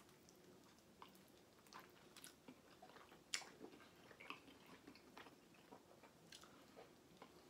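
Faint chewing and mouth noises from a person eating: scattered soft clicks and smacks, irregular, with no steady sound under them.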